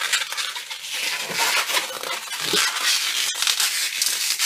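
Red 260Q latex modelling balloon being twisted and handled, the latex rubbing and squeaking under the fingers in repeated scratchy bursts.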